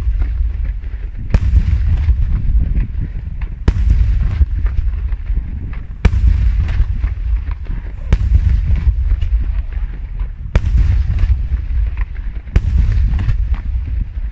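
Daytime aerial fireworks shells bursting overhead: six sharp, heavy bangs about every two seconds over a continuous rumble of rolling reports and crackle.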